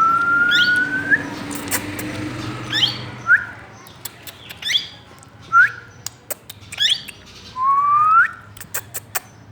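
Plum-headed parakeet calling: a rising whistle, then a string of short, squeaky, upward-sweeping notes, with another long rising whistle near the end. Sharp clicks are scattered among the calls.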